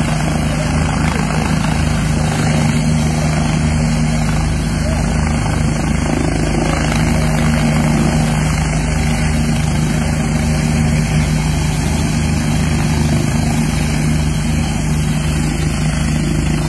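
A small helicopter coming in to land, its rotor and turbine engine running loud and steady with a fast pulsing rotor beat, as it descends and settles onto its skids.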